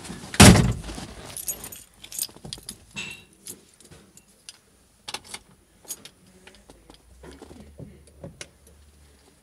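A heavy thump about half a second in, then a bunch of keys jangling and clicking as they are handled at a 1965 Ford Mustang's ignition, in scattered short rattles.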